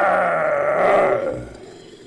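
Monster roar sound effect, made by layering a human voice with recorded film-creature roars. It is one loud, wavering, pitched roar that fades out about one and a half seconds in.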